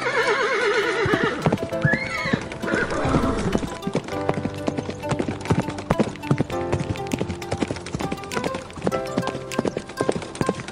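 A horse whinnying with a wavering, falling pitch in the first second, a shorter call about two seconds in, then hooves clip-clopping in a steady rhythm, over background music.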